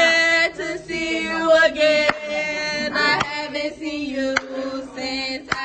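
A group of young voices chanting in unison on long held notes, with sharp hits about once a second.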